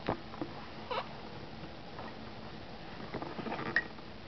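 A five-month-old baby's mouth sounds while being fed rice porridge: short lip smacks and clicks with a few small vocal noises, most of them bunched together about three seconds in.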